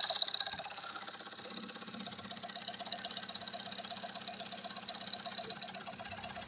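Car engine running with a rapid, even knocking.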